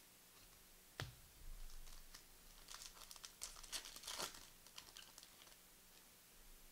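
Trading-card pack wrapper being torn open and crinkled: a sharp click about a second in, then a few seconds of faint, irregular crackling.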